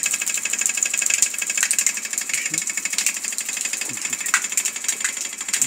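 Water pouring from an outdoor tap into a basin, with a fast, steady rattling buzz running through it.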